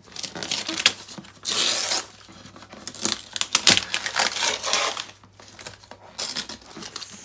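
Gift-wrapping paper being torn off a cardboard box by hand: a series of rips and crinkles, the longest rip about one and a half seconds in.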